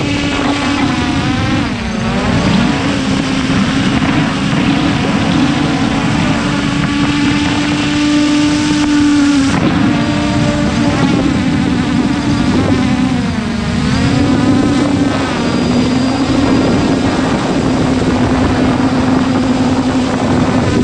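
Multirotor drone's motors and propellers whining steadily, heard close up from the drone's own onboard camera. The pitch dips and climbs back briefly about two seconds in and again about two-thirds of the way through, as the motors change speed.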